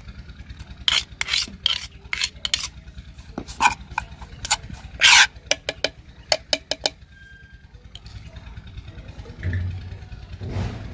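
Metal spoon scraping and clicking against a clay bowl while stirring chopped chillies and ginger-garlic paste: a string of short scrapes and taps that stops about seven seconds in, over a steady low hum.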